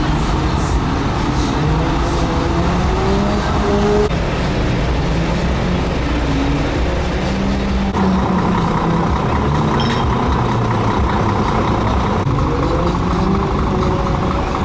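Heavy truck diesel engines running, their pitch slowly rising and falling as they are revved. A steady higher whine joins about halfway through.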